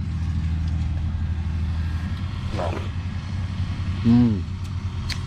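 A straw baler's engine running with a steady low drone.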